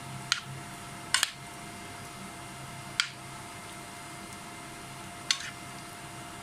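A utensil clinking sharply against a bowl about five times, a quick double among them, as chicken is mixed with its yogurt and spice marinade, over a steady low hum.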